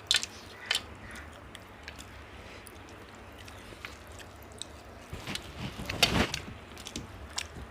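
Eating sounds: scattered soft clicks and smacks of people eating biryani, the loudest cluster about six seconds in, over a low steady hum.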